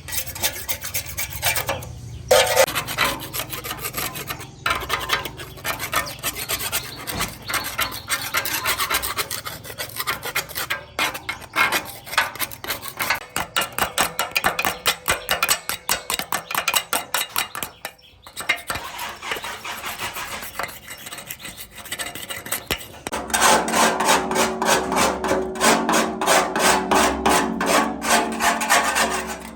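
Rapid back-and-forth scraping strokes of a hand tool on a workpiece, several a second, with short pauses; near the end the strokes grow louder and harsher, with a faint ring.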